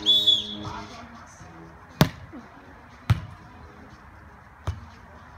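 A short whistle blast right at the start, then a beach volleyball struck by hand three times: a sharp hit of the serve about two seconds in, another sharp contact about a second later, and a softer touch a second and a half after that.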